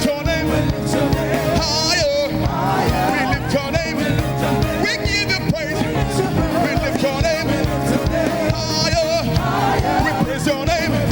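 Live gospel worship music: a band playing a steady beat while a voice sings a wavering, ornamented melody over it.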